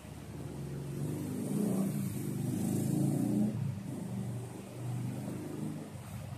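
A motor vehicle's engine running, swelling in loudness to a peak about three seconds in and then easing off.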